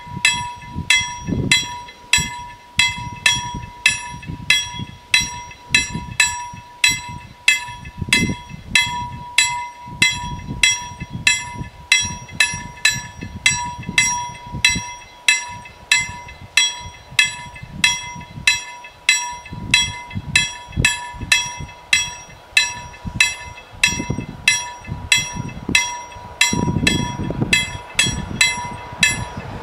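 Level-crossing warning bell striking steadily, about two strikes a second, warning that the barriers are down for an approaching train. A steady high tone sounds under the strikes.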